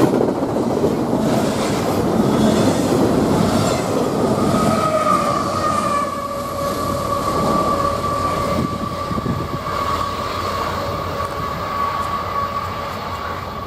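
Train rolling past with a steady rumble and wheel clatter. About four and a half seconds in, a steady high-pitched wheel squeal sets in and holds.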